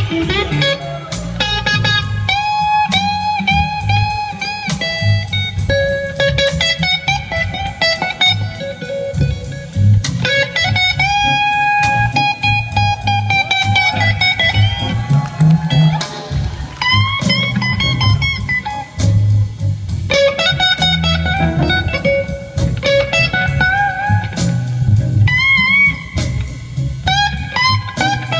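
A live blues-rock band playing, led by an electric guitar solo. The guitar's notes are bent and held with vibrato over bass and drums.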